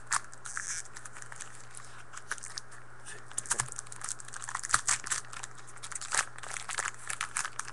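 Trading-card pack wrappers crinkling and tearing as card packs are handled and opened by hand, with irregular crackles throughout. A steady low hum runs underneath.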